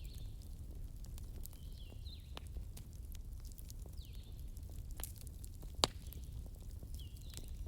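Wood fire crackling: scattered sharp pops and snaps over a low rumble, with one louder pop about six seconds in. Short high chirps that fall in pitch come and go every second or two.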